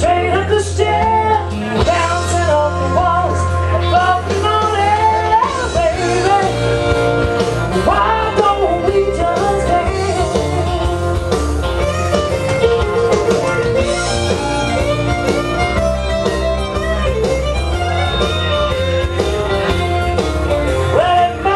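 A song with a lead singer over band backing, played loud with a steady bass line.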